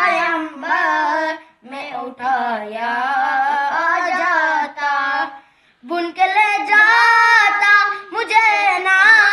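Two boys singing a naat without instruments, in long held, melismatic phrases with a brief break about halfway through.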